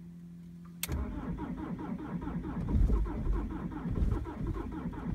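A steady low hum with the ignition on, then, a little under a second in, a sharp click as the starter engages and the BMW E46's 204D4 2.0-litre four-cylinder turbodiesel cranks and fires in a cold start. The engine then runs rough and uneven, its loudness rising and falling.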